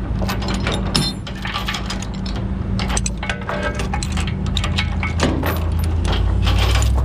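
Steel tie-down chain links clinking and rattling as a chain is handled and hooked, over an engine running steadily; the engine hum gets louder about four seconds in.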